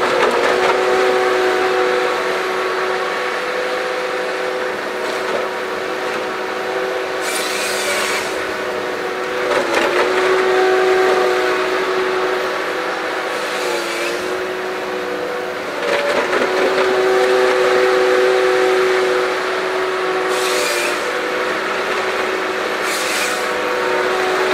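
Tigercat LH855D tracked harvester's diesel engine running steadily under hydraulic load, its pitch dipping briefly several times as the Ponsse H8 head grips and processes a log. Short high hissing bursts from the head's hydraulics come several times.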